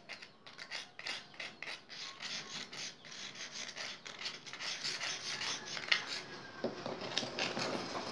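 A small tool scraping round the inside of a freshwater mussel shell in quick repeated strokes, stirring freshly mixed Rapid Repair powder into a paste for casting pearl seeds.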